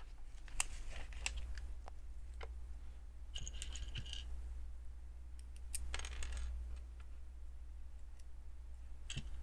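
Small plastic Lego pieces clicking and clinking as they are picked through and handled. There is a jangly rattle of pieces about three and a half seconds in and another around six seconds, over a steady low hum.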